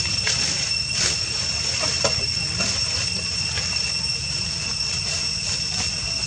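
Steady, high-pitched insect drone holding one unchanging pitch, over a low rumble.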